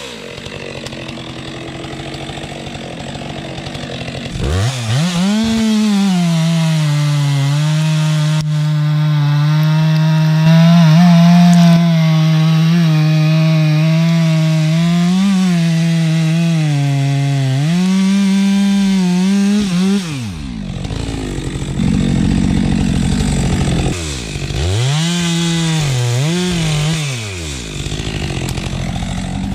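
STIHL gas chainsaw idling, then revving up about four seconds in and cutting through a maple log under steady load for roughly fifteen seconds. It then drops back near idle, is blipped twice, and settles again near the end.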